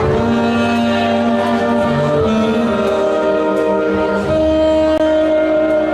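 Dance music playing loud, with long held melodic notes over a bass line.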